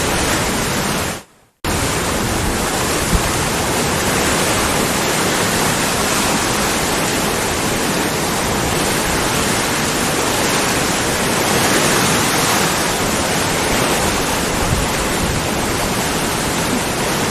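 Waterfall rushing steadily, a dense even roar of falling water. About a second in it fades out briefly and cuts back in abruptly.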